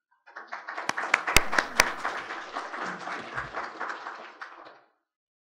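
Audience applauding, loudest in the first two seconds with a few sharp single claps standing out, then dying away about five seconds in.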